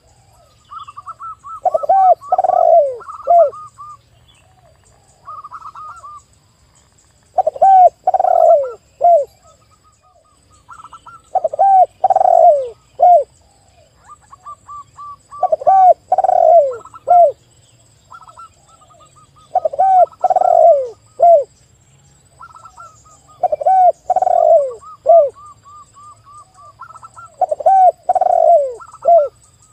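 Spotted dove cooing its loud phrase of three or four falling notes about every four seconds. Between the phrases a zebra dove sings quicker, higher runs of short staccato coos.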